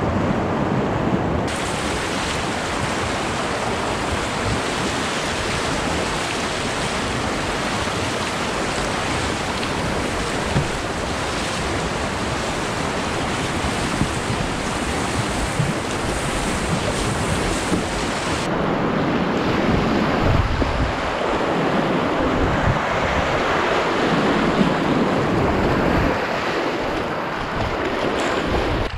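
Rushing whitewater of a flooded river rapid heard from a kayak in it, a steady loud rush with wind buffeting the microphone. The rush swells a little in the later part.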